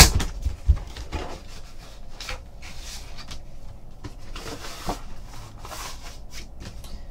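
A paper envelope being handled and opened by hand: scattered rustling, scraping and rubbing, with a sharp click at the start.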